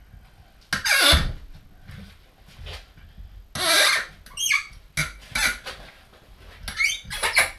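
A seized, rusted bolt squealing in its threaded hole as it is worked back and forth with a spanner. There are several short, loud squeaks with sliding pitch, the sign of dry, corroded threads starting to give.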